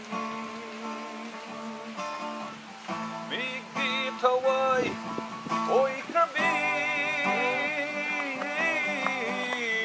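Acoustic guitar being played while a man sings a slow song, his voice wavering with vibrato on long held notes.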